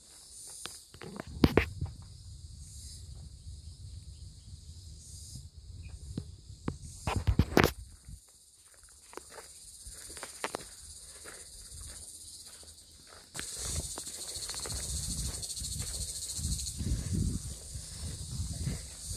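Footsteps on a hiking trail, with a few sharper knocks among them, over a steady high-pitched chorus of insects that grows louder about two-thirds of the way through.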